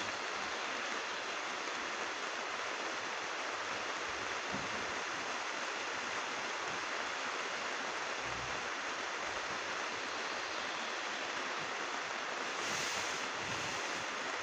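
Steady rain falling: an even hiss of raindrops with no break or change.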